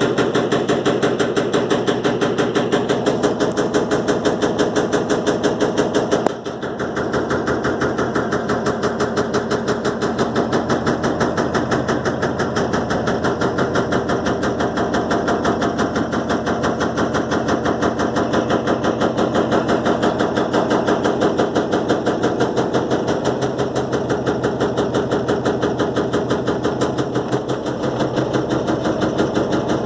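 Electrolux LTE12 top-load washing machine spinning with its load bunched on one side, so the unbalanced drum knocks and rattles rapidly and steadily: a loud racket. It dips briefly about six seconds in.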